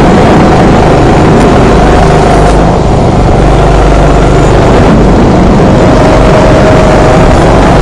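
Go-kart engine running at speed, heard from onboard the kart, loud and steady, with a brief slight dip about three seconds in.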